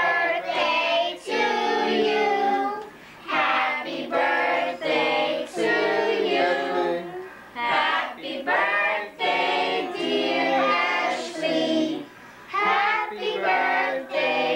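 A young child singing without accompaniment: phrases of held, gliding notes with short breaths between them.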